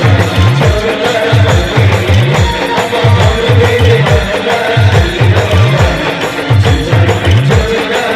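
Timli dance music from an Adivasi band: a loud, driving bass-drum beat of about two strokes a second under a repeating melody line.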